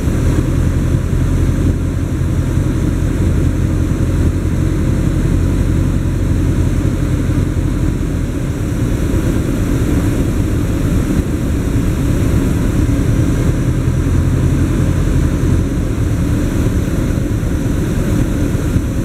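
Single-engine propeller airplane's engine and propeller running steadily, heard from inside the cockpit, with a steady rushing noise over a low hum.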